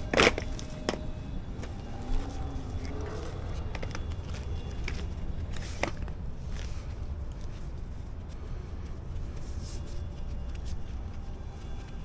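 Steady low background rumble with a few sharp knocks, the loudest right at the start.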